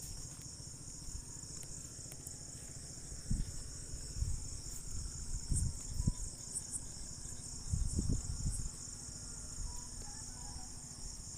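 Crickets chirring steadily. Between about three and nine seconds in come a scattering of dull taps from a spanner knocking paper against the steering box's flange to cut out a homemade paper gasket.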